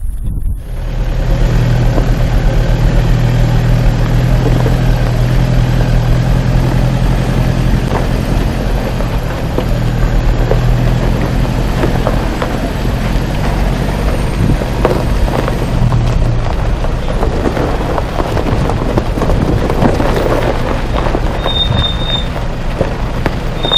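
A Toyota 4x4's diesel engine running steadily as the vehicle drives, with scattered knocks and crunches over the broad noise. The engine hum fades about two-thirds of the way through.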